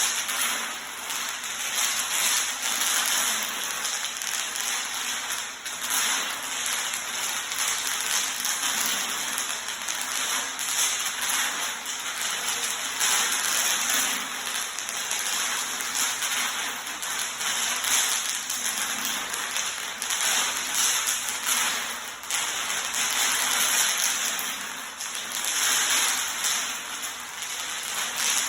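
Bubble wrap popping in a dense, continuous crackle as hoverboard wheels roll over it, many small pops running together.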